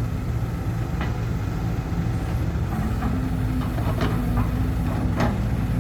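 Heavy diesel dump truck engine running under load, a steady low drone whose pitch steps up slightly about halfway through, with a few light knocks. The truck is smoking heavily as it works with a full load.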